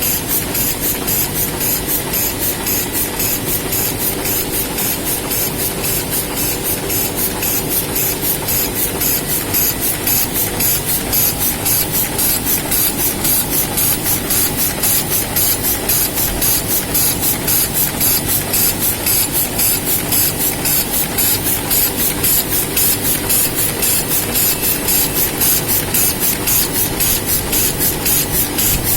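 Heidelberg Speedmaster SM72 sheet-fed offset press running in production. The sheet-feed cycle sets up a fast, regular beat under a steady hiss.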